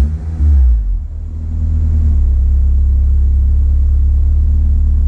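Acura RSX Type-S K20 four-cylinder engine idling, just started on a freshly loaded base-map tune. It gives a brief rev right at the start, then settles back to a steady idle.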